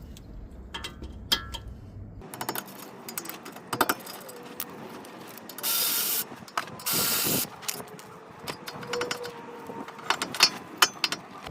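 Ratchet wrench with a 13 mm socket loosening and removing a car's front brake caliper bolts: scattered ratchet clicks and metal knocks, with two short noisy bursts about six and seven seconds in and a quick run of sharp clicks near the end.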